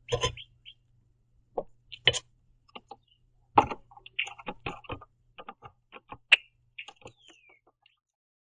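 Red-winged blackbird pecking at sunflower seeds on a wooden platform feeder: a string of irregular sharp taps and clicks, with a short falling call note about seven seconds in.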